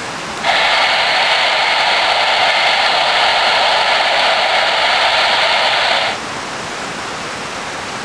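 Handheld CB radio's speaker hissing with open-squelch static while listening on channel 19; no station answers. The hiss starts abruptly about half a second in and cuts off about six seconds in.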